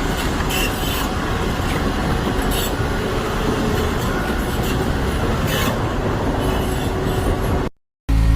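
Heavy earthmoving machine working, a loud, steady mechanical noise with metallic squeals and knocks; it cuts out abruptly near the end and comes back as a steadier engine running.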